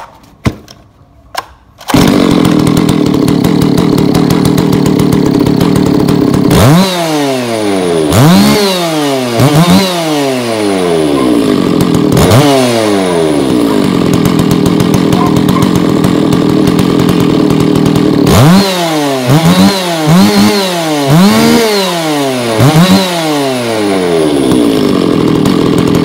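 Stihl 660 Magnum two-stroke chainsaw being started: a few sharp pulls, then the engine catches about two seconds in and idles. It is revved in quick blips that rise and fall back, twice and then once in the first half, then a run of four or five near the end, and it runs smoothly after a hand rebuild.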